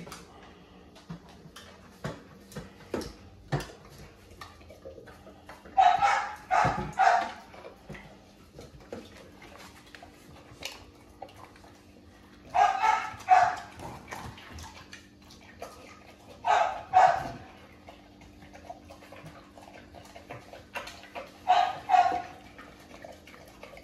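A dog barking in four short runs of two to four barks each, over the small clicks and chewing of a large dog eating from a stainless steel bowl.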